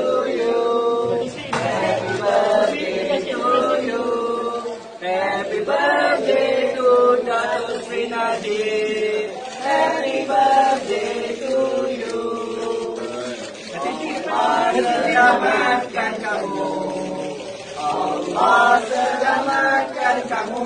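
A group of people singing a birthday song together, the voices holding each note in unison.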